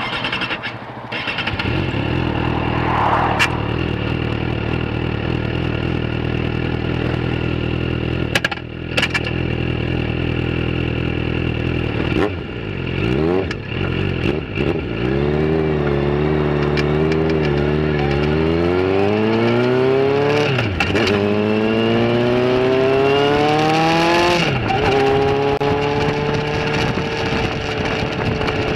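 Suzuki GSX650F's inline-four engine idling steadily, then pulling away about twelve seconds in and revving up through the gears. The pitch climbs and drops sharply twice at upshifts, then holds steady at cruising speed near the end.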